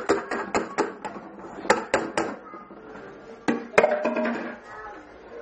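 Kitchenware clattering as a plastic bowl and a metal pot are handled: a quick run of sharp knocks, three more about two seconds in, and two louder ones nearer four seconds in.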